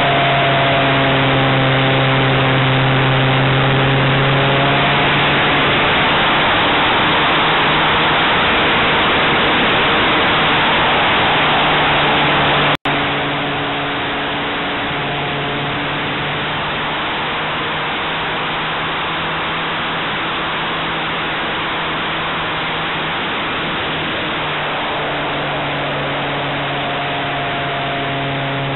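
Onboard sound of a radio-controlled model airplane in flight: its engine running with a steady tone under heavy wind rush, the tone fading and returning and shifting slightly in pitch. About 13 seconds in, the sound cuts out for an instant and comes back a little quieter.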